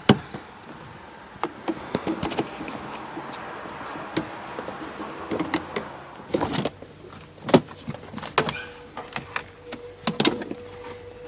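Plastic car interior trim clips and panels being pried loose by hand: scattered sharp clicks and knocks with a scraping rustle of plastic trim being worked free.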